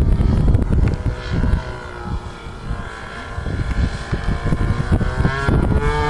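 Model aircraft engine buzzing over gusts of wind on the microphone, its pitch rising about five seconds in.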